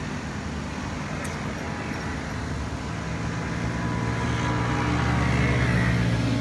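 Road traffic on an elevated highway: a steady drone of engines and tyres that swells toward the end as a heavier vehicle passes.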